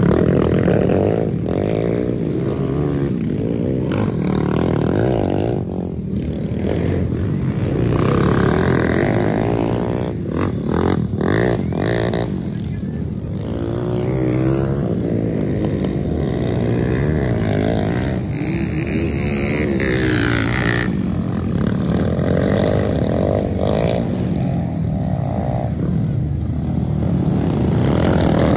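Dirt bike engines revving and accelerating on a dirt race track, their pitch rising and falling over and over as the riders throttle up and ease off through the corners.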